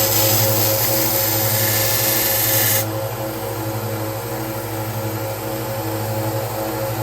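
Bucktool 1x30 belt sander running steadily, its 50-grit belt grinding a knife blade with a loud hiss. The grinding stops abruptly about three seconds in, and the motor runs on alone.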